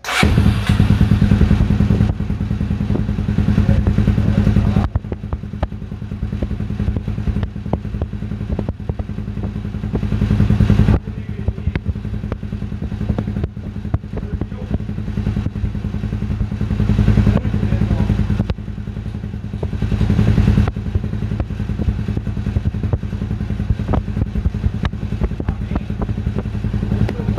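Honda XR250 Tornado's freshly rebuilt single-cylinder four-stroke engine running, revved up now and then, on what is its first start after the rebuild.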